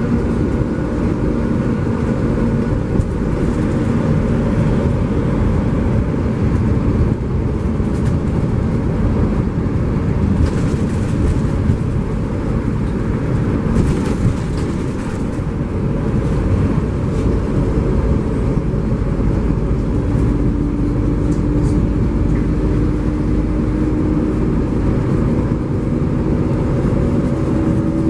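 LiAZ-5293.60 diesel city bus driving, a steady rumble of engine and road noise. In the last third a thin whine slowly rises in pitch.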